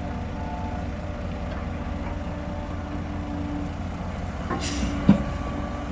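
Dump truck engine running steadily with a low rumble. About four and a half seconds in comes a short hiss of air, followed by a sharp knock.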